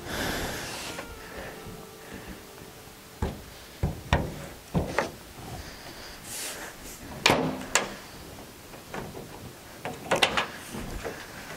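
Pickup tailgate being swung shut and latched: a run of sharp metal clicks and clunks, the loudest about seven seconds in.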